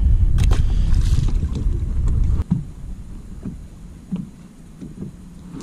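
Wind buffeting the camera microphone with a low rumble, which drops away about halfway through. A few light clicks and knocks follow.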